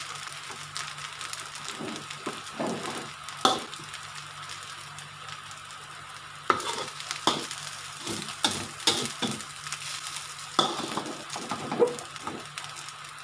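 Metal spatula scraping and knocking against a steel wok as fried rice is turned and tossed, in irregular strokes. A steady light sizzle comes from the wok, whose burner has just been turned off.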